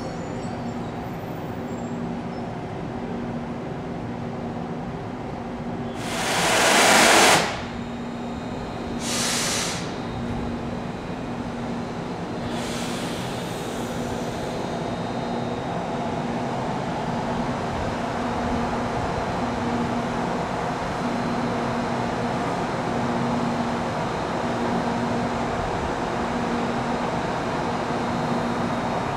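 Railway electric locomotive humming steadily at a station, with a low tone pulsing slowly on and off. Sharp bursts of air hiss come about six and nine seconds in, the first the loudest, then a fainter hiss around thirteen seconds.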